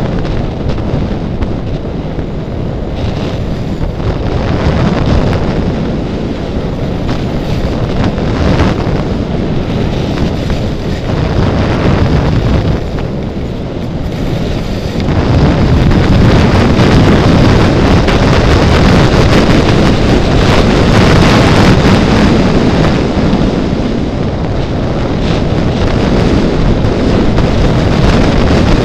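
Rushing wind buffeting the microphone of a skier's camera on a fast downhill run, mixed with the scrape of skis on packed snow; it grows louder about halfway through and stays loud.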